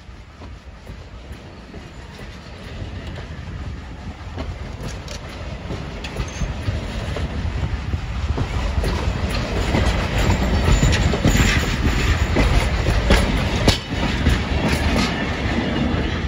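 Railway passenger coaches rolling past close by: a steady low rumble of steel wheels on rail, with a run of clicks over the rail joints, growing louder and busiest in the second half.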